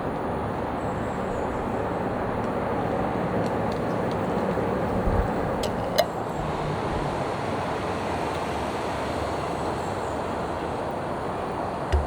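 Steady rumble of vehicle noise, with a sharp click about six seconds in and a low thump near the end.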